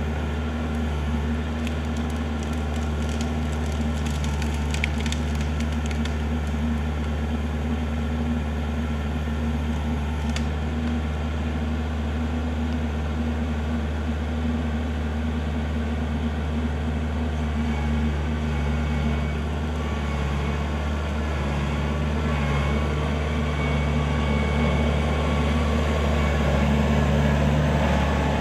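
Kubota L4400 tractor's diesel engine running steadily under hydraulic load. Wood cracks and splinters in a cluster in the first few seconds, with another snap around ten seconds in, as trees are grabbed by the backhoe. The engine note gets a little louder near the end.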